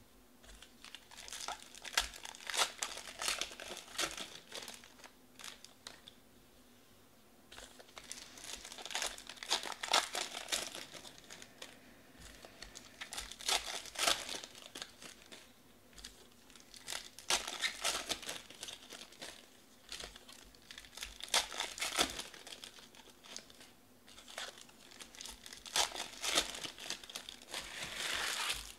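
Baseball cards being flicked and shuffled through by hand: crinkly, papery rustling in bouts of a few seconds, with short quieter gaps between them.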